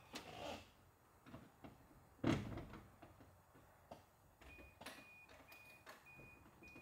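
Scattered quiet clicks and knocks with one thump about two seconds in, then a faint high-pitched electronic beep repeating about twice a second near the end. No engine is heard running: the announced start of the supercharged engine does not happen.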